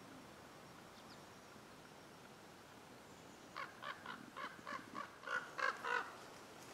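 Ravens calling overhead in flight: a quick run of short, harsh calls, about four a second, starting about halfway in and lasting a couple of seconds.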